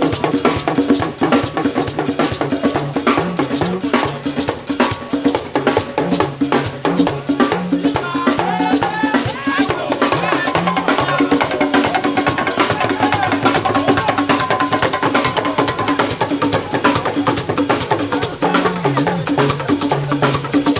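Band music with drums and hand percussion keeping a steady beat over a moving bass line.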